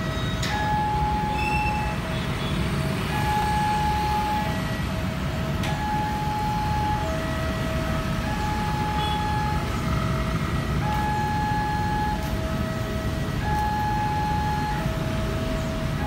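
Railroad level-crossing warning signal sounding a repeating melody of long electronic tones, about a second each and at several pitches, over the steady rumble of street traffic.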